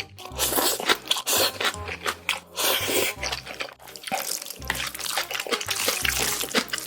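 Close-miked eating of noodles: wet slurps and chewing with many quick sticky clicks and smacks, and several longer slurping stretches.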